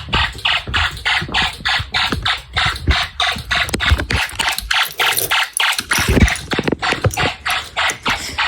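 Fire alarm horn of a homemade Snap Circuits fire alarm system sounding in a system test: a loud, rasping pulse repeating about four to five times a second.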